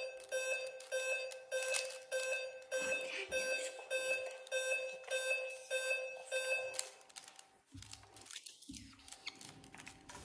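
Evenly repeating electronic beeps from a laptop's flash-number mental-arithmetic drill, sounding as the numbers flash up. They stop about seven seconds in, when the number sequence ends, leaving faint rustling.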